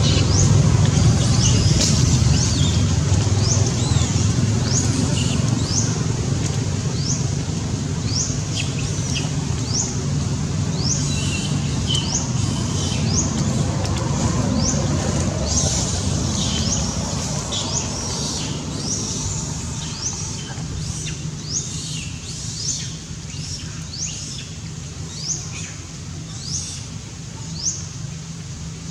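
Small bird calling over and over, a quick series of short rising chirps about two a second, over a low rumble that fades away over the first twenty seconds or so.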